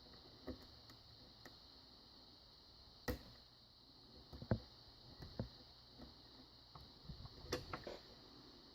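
Faint, irregular clicks and light taps of a lock pick working the pin stack inside a padlock under tension, with a dozen or so small ticks spread over several seconds.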